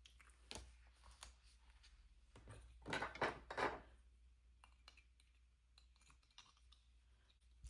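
Faint scissors cutting paper stickers: a few scattered snips, then a quick run of cuts about three seconds in.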